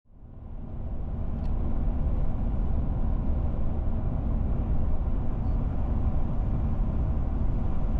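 Steady low rumble of a 2011 Chevrolet Silverado 1500 pickup's road and engine noise at highway speed, heard inside the cab. It fades in over the first second or so.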